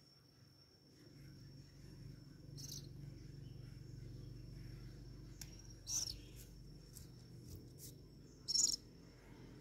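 A cricket trilling as one steady high-pitched tone, with three short, louder hissing bursts about three seconds apart over a low rumble.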